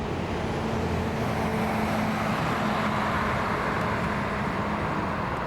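Jet airliner engines passing close by: a steady rushing noise that swells a little in the middle, with a low steady hum and a faint high whine.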